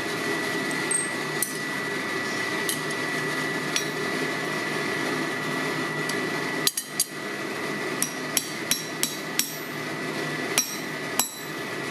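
Hand hammer striking hot steel on an anvil, setting a shrink-fit rivet through the caliper arm: a few light metal clinks at first, then a run of about a dozen quick blows in the last four seconds. A steady machine hum with a thin high whine runs underneath.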